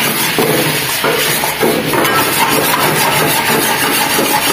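Long-handled steel ladle scraping and tossing noodles and vegetables around a metal wok as they stir-fry, in quick repeated strokes.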